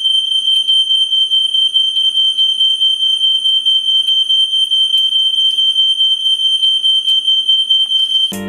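Smoke alarm sounding one continuous high-pitched electronic tone, which starts abruptly and cuts off suddenly near the end.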